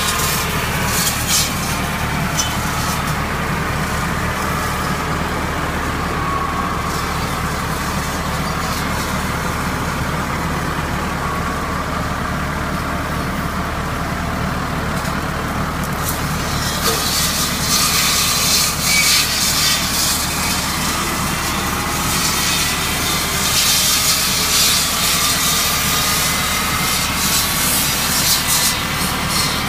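Tractor-mounted orchard contour-pruning saws, a hydraulically driven vertical saw bar, running through the tree row over the steady hum of the tractor engine, with a whine that drifts slowly in pitch. The crackle and rustle of branches and leaves being cut is heaviest about halfway through and on to the end.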